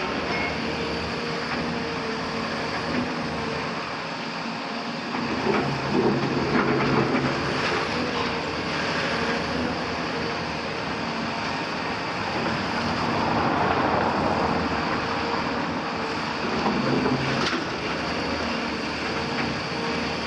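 Caterpillar 340F excavator at work: its Cat C9.3 ACERT diesel engine runs steadily under load with its hydraulics. The bucket breaks down brick and concrete walls, with a few sharp knocks.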